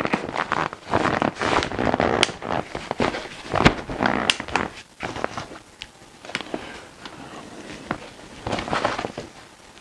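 Softbox fabric rustling and crinkling, with sharp clicks from its rods and plastic mount as it is handled and opened out. The rustling is dense for about the first half, then thins to a few scattered clicks and softer rustles.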